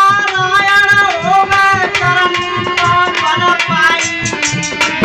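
A man singing a folk melody to harmonium accompaniment, over a steady beat on a dholak barrel drum. Near the end the melody settles into steadier held notes.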